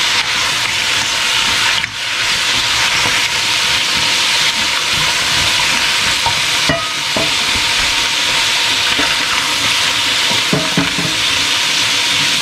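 Crab pieces, onions and squash sizzling in a hot stainless steel wok while being stirred with a silicone-headed spoon: a steady frying hiss with a few light scrapes and knocks from the stirring.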